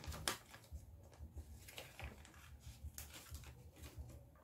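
Scissors cutting paper: a string of faint, irregular snips with paper rustling in between.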